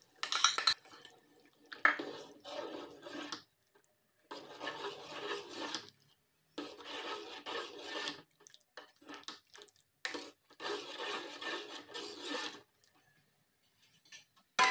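A spoon stirring thick sambar with mashed dal in a metal pot: wet rubbing and sloshing in four spells of about two seconds each, with a few light clicks of the spoon between them.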